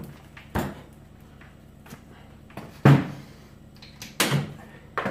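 Knocks and clunks from handling tools: the sander is set down on the table and a quick-release bar clamp is worked. There are four sharp knocks, the loudest about three seconds in.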